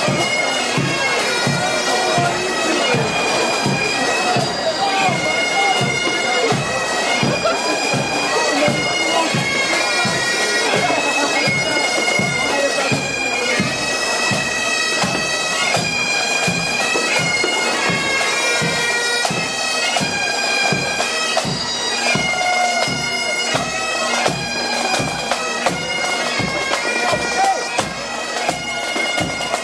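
Pipe band playing: bagpipes sounding a melody over their drone, with a steady drumbeat underneath.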